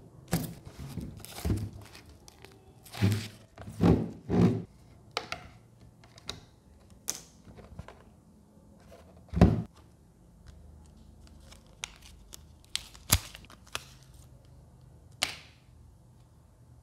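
Handling noise from a plastic speaker housing being moved, turned over and set down on a table: scattered thunks, knocks and small clicks. The loudest come in a cluster a few seconds in and once more near the middle.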